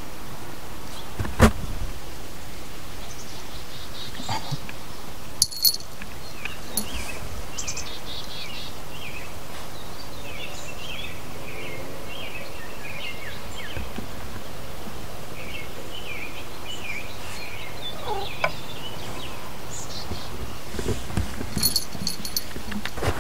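Outdoor ambience: a steady rush of wind with small birds chirping in short repeated runs of notes through the middle, plus a thump near the start and a couple of sharp clicks.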